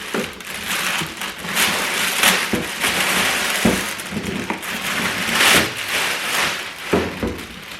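Cardboard and plastic packaging rustling and scraping as a lawnmower is pulled out of its box, with a few knocks.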